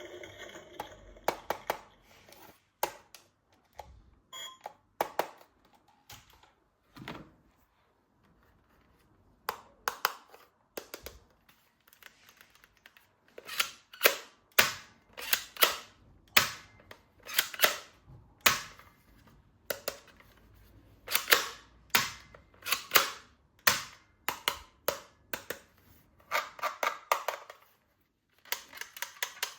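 Sharp plastic clicks and snaps of toy guns being worked, sparse at first and then coming about one or two a second.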